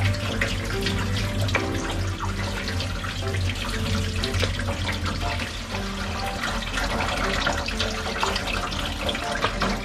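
Kitchen tap running in a steady stream onto a cutting board while small whiting are scraped clean of scales with a plastic bottle cap, with small scraping clicks and splashes through the running water. Background music plays along with it.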